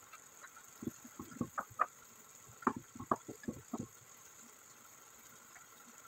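Wooden spoon stirring fettuccine in cream sauce in a pot, a quick string of short soft knocks and scrapes for about three seconds, then only a faint steady hiss.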